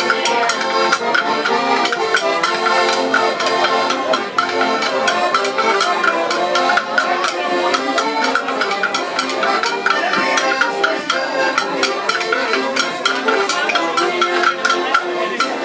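Live folk music played on several accordions, a lively tune with a steady beat.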